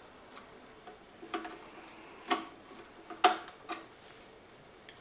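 Scattered light clicks and taps, about seven of them at uneven intervals, of a screwdriver working screws back into the spot welder's sheet-metal case.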